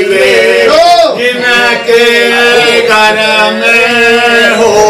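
A man singing loudly in long, held notes that slide up and down between phrases.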